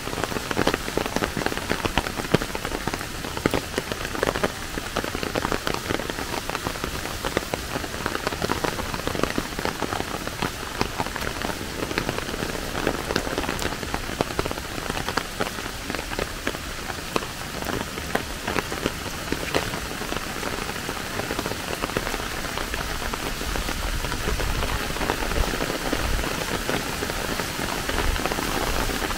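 Steady rain falling, with a dense pitter-patter of individual drops.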